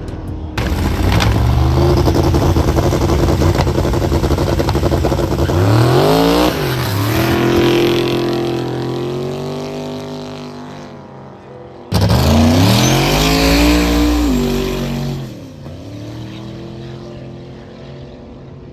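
Racing car engines at full throttle, with pitch climbing and then falling away at gear changes. A fresh loud burst of engine noise starts abruptly about twelve seconds in, then fades away.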